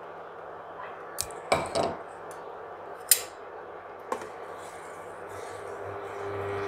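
Metal spoon stirring hot thickened milk in a stainless steel pot, knocking and scraping against the pot's side in a few sharp clinks, the loudest about a second and a half and three seconds in.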